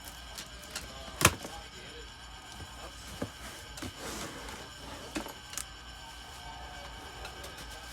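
Handling noises from unboxing: a few separate knocks and rustles as the box and its contents are moved, with one sharp knock about a second in.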